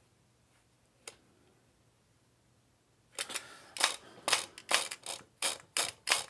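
A Ford points distributor being handled and turned on the bench: one faint click about a second in, then a quick irregular run of about eight sharp mechanical clicks.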